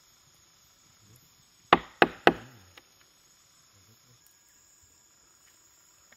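Three sharp knocks on wood in quick succession about two seconds in, followed by a fainter fourth, as the wooden shield is worked. A steady high insect drone runs underneath.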